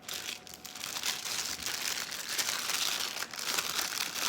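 Packaging crinkling and rustling as it is handled and pulled open by hand, with a string of small crackles.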